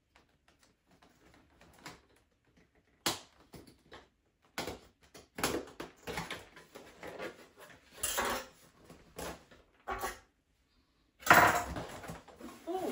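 Cardboard box being opened by hand: packing tape slit and pulled in a series of short rips and scrapes, then the box flaps pulled open with a loud cardboard rustle about 11 seconds in.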